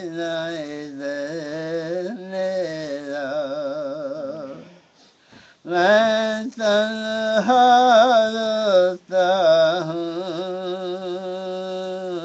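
A man singing a manqabat solo, holding long, ornamented notes with a wavering pitch. There is a short break for breath about five seconds in, and the singing comes back louder.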